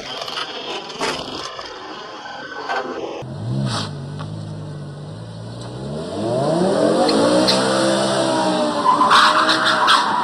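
Road noise in heavy rain, then, from about three seconds in, a BMW sedan's engine revving up and down as the car slides sideways through a bend, with loud tyre squeal near the end.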